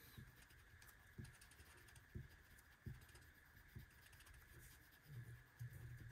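Near silence: faint soft taps about once a second from markers being handled and drawn on paper at a table.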